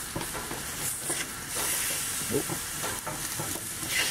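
Blue marlin loin sizzling and hissing on a hot salt block on a gas grill, the hiss growing stronger partway through. Near the end a spatula slides under one loin to flip it and the sizzle flares up.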